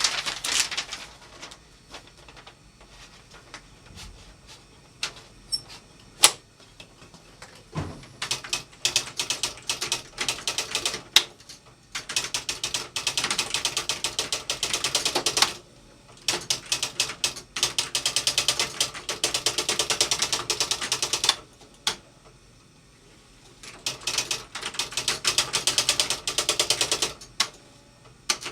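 Typewriter being typed on: long runs of rapid key clacks with short pauses between them, and a few single louder clacks near the start.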